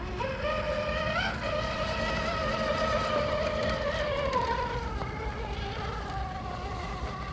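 Hobbywing Quickrun Fusion brushless motor and gear drivetrain of an Axial Unimog 6x6 RC crawler whining as it drives. The pitch jumps up briefly about a second in, holds steady, then slides lower from about four seconds as the truck slows.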